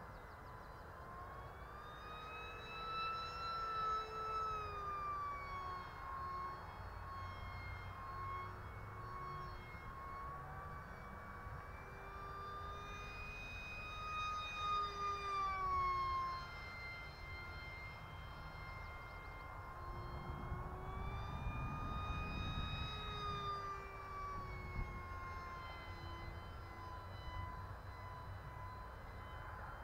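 High-pitched whine of the HobbyKing PrimeJet Pro's electric motor and propeller, flying on a 4S battery. The pitch rises and falls as it makes several passes and is loudest about halfway through. Low wind rumble on the microphone swells near the end.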